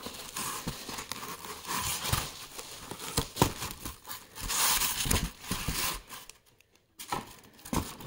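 Packaging crinkling and rustling as a packed item is handled and unwrapped, with scattered sharp clicks and knocks. The rustling is loudest past the middle and dies down to a few clicks near the end.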